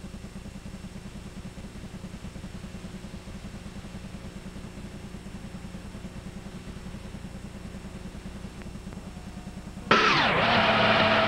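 Steady low mechanical hum with a fast, even flutter. About ten seconds in it gives way abruptly to a much louder burst of noise with a falling whine, where the video tape cuts to a blank screen.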